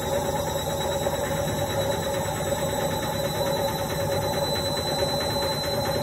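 Indesit front-loading washing machine on its spin cycle, the drum spinning at high speed with a steady motor whine over a dense, even hum.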